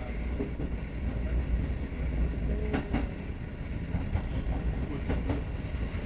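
Kotoden electric train running on the rails, heard from inside the driver's cab: a steady low rumble with sharp clickety-clacks of the wheels over rail joints, a cluster around the middle and a couple more near the end.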